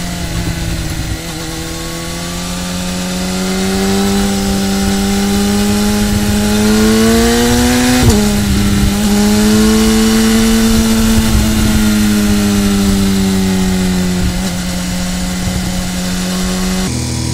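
BMW S1000R inline-four engine pulling under throttle, its note climbing for several seconds. About eight seconds in it upshifts with a sharp click and drop in pitch, then revs a little higher and eases off to a steady cruise. Wind rushes underneath throughout.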